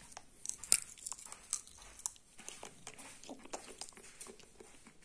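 Roasted black sunflower seeds being cracked open between the teeth and chewed: a run of irregular sharp cracks and crunches.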